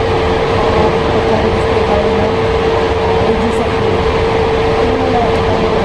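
Steady, loud machine noise: a constant rushing hiss with a single held hum, unchanging throughout.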